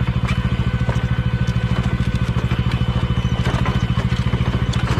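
Motorcycle engine idling with a steady, rapid low pulse, with a few faint clicks and knocks over it.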